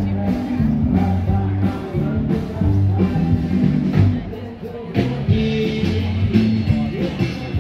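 Rock and roll background music with a singing voice over guitar and drums.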